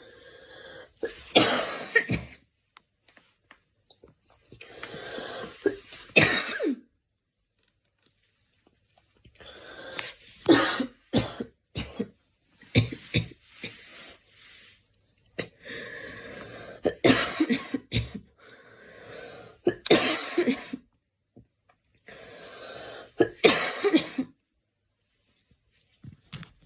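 A girl coughing in about seven bouts with short pauses between. Each bout is a drawn-in breath followed by several sharp coughs.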